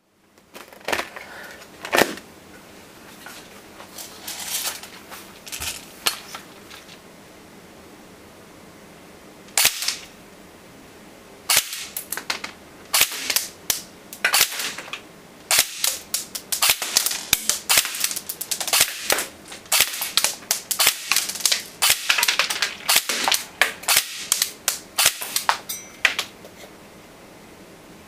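JG FB6621 HK416 electric airsoft rifle being fired: sharp mechanical clacks as the gearbox cycles, some single shots and some short rapid bursts, with pauses between them.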